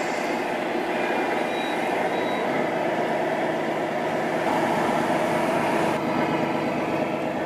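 Scale RC model semi-trucks driving, their electronic sound modules playing a steady diesel-truck engine sound. It gets louder about four and a half seconds in as one truck passes close by.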